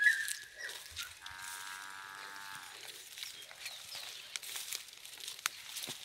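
An animal's long drawn-out call, held for about a second and a half and dipping slightly at its end. It sits over the rustle of steps through tall grass.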